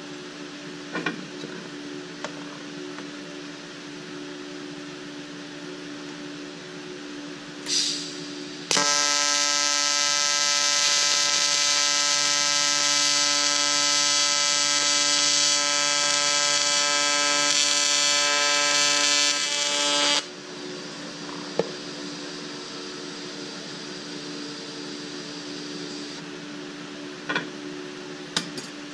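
AC TIG welding arc on a thick aluminium block, buzzing loudly and evenly for about eleven seconds before cutting off sharply; a short hiss comes just before the arc starts. A steady low hum from the welding machine runs underneath.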